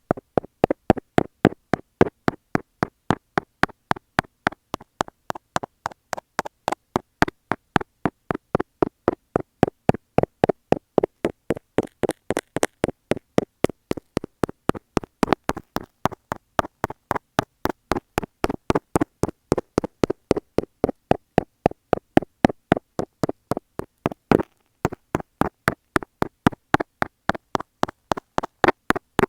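Dental scaler tapping steadily, about four taps a second, picked up through an earphone microphone fixed to a wall. The taps pause briefly near the end.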